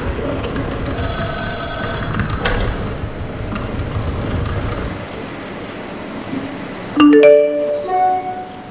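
Hall ambience with a brief bell-like chime about a second in, then the routine's music starts about seven seconds in with a loud run of ringing bell-like notes stepping upward.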